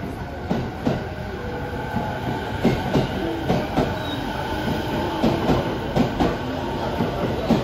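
JR East 209 series electric train pulling out past the platform, its wheels clicking over rail joints in uneven pairs over a steady running rumble.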